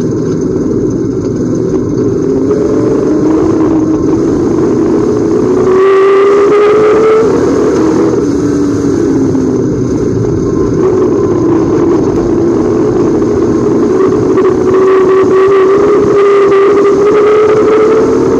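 Several Pure Stock dirt-track race cars' engines running together, their pitch rising again and again as they accelerate down the straights. The loudest moment comes about six seconds in, as cars go by closest.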